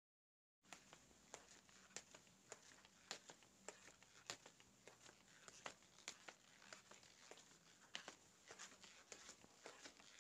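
Near silence: faint background hiss with scattered faint clicks, a few a second, starting from dead silence about half a second in.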